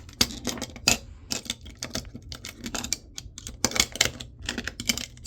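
Quick, irregular clicks and taps of a hand tool working on a laptop hard drive, small metal parts knocking together.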